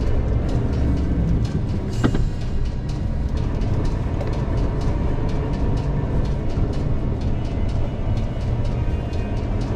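Large truck rumbling slowly over the rails of a humped railway level crossing: a steady low engine and road rumble with rattling, and a sharp knock about two seconds in as it bumps across.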